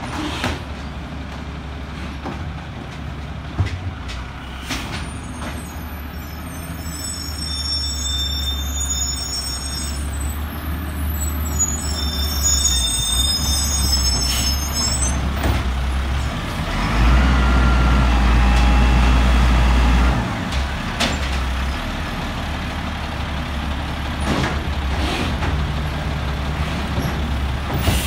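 Peterbilt automated side-loader garbage truck's diesel engine running as it drives slowly up to the bins, with short air-brake hisses now and then. The engine grows louder for about three seconds past the middle, then settles back to a steady drone.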